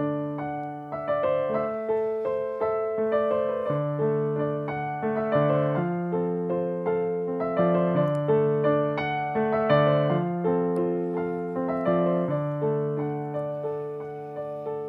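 Electronic keyboard with a piano voice playing a slow instrumental introduction of broken chords, a new note struck about every half second and left to ring over the others.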